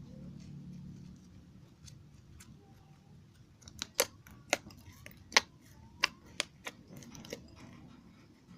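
Slime being pressed and worked by hand, making a run of sharp, irregular clicking pops, about eight of them over three and a half seconds from roughly midway through.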